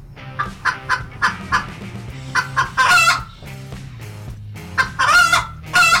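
Chickens clucking: runs of short clucks, each ending in a longer, wavering call, about three times over.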